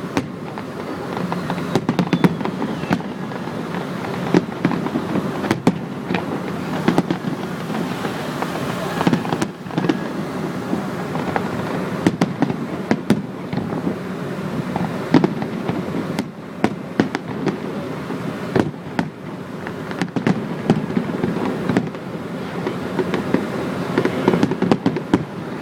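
Fireworks going off: a dense, continuous crackling with many sharp bangs at irregular intervals.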